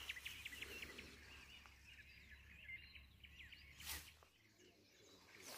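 Faint chirping of many small birds, short calls overlapping one another, with one sharp click about four seconds in.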